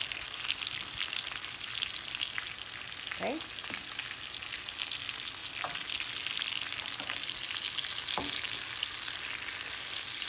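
Shell-on shrimp frying in garlic butter and oil in a pan: a steady sizzle full of fine crackling pops.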